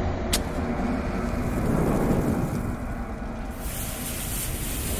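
Intro sound effect of a lit bomb fuse hissing over a low rumble. About three and a half seconds in, a brighter rushing hiss of flame joins in, building toward the bomb's explosion.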